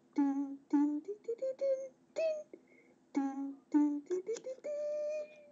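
A person vocalizing a tune in short sung syllables, the pitch hopping up and down, ending on one held higher note.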